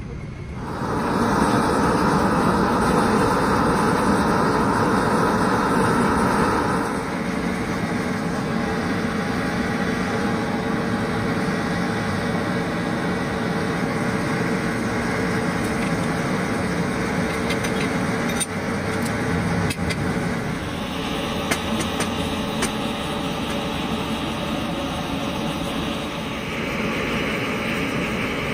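A steady rushing, engine-like mechanical noise that changes tone abruptly several times, with no single clear event.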